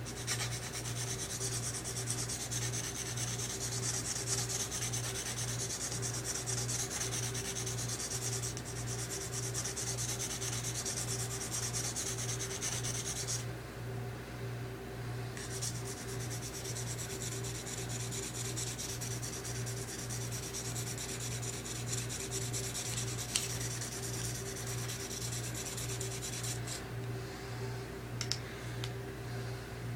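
Smith & Wesson Black Ops recurve knife blade stroked steadily across an oiled sharpening stone, making a continuous scraping hiss. The strokes pause briefly about halfway through and again near the end, over a constant low electrical hum.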